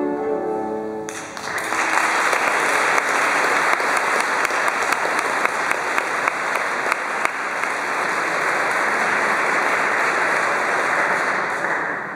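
A sung number with accompaniment ends about a second in, and the audience breaks into steady applause, which dies down near the end.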